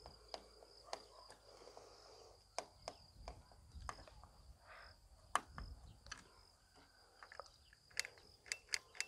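Faint, scattered light clicks and knocks from handling the cordless mower's plastic parts while fitting its key and battery, with more clicks near the end. A faint steady high-pitched tone runs underneath.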